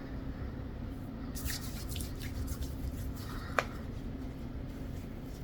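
Handling of skincare product containers and cream: soft squishing and rustling with a few light clicks, one sharper click a little past the middle, over a steady low room hum.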